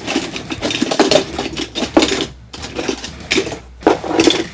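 Die-cast metal toy cars clinking and clattering against one another as a hand rummages through a box full of them: a quick, uneven run of metal clicks with a couple of short pauses.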